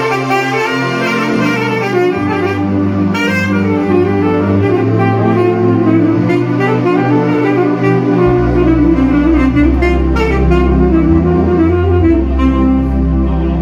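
Saxophone playing a melody over an accompaniment of long, held bass notes that change pitch every few seconds.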